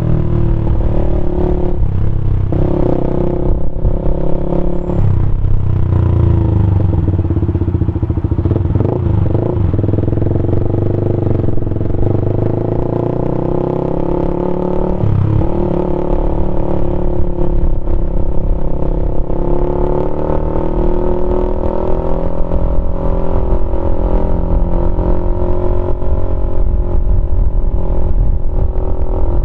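Keeway RKF 125's single-cylinder four-stroke engine running through a GPR Deeptone exhaust with the dB killer removed. Its pitch rises and falls with the throttle, with brief breaks a few times, such as at gear changes while riding.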